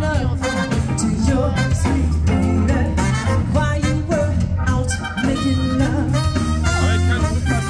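Loud upbeat music with a steady beat, bass and singing.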